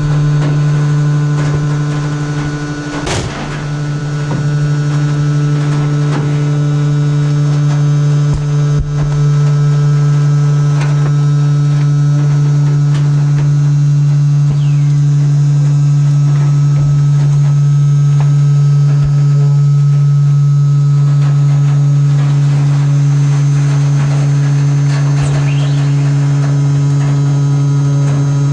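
Waste compactor container's hydraulic drive running with a loud, steady hum, while the trash bags being squeezed give a sharp crack about three seconds in and scattered crackles of plastic after it.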